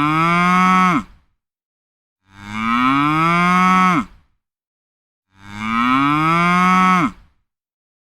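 A cow mooing: the same long moo three times, about three seconds apart, with dead silence between. Each moo rises in pitch and drops off sharply at the end.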